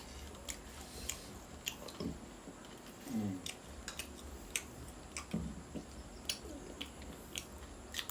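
Close-up eating sounds from chicken thukpa: chewing, with frequent sharp wet mouth clicks and smacks and a few brief vocal sounds.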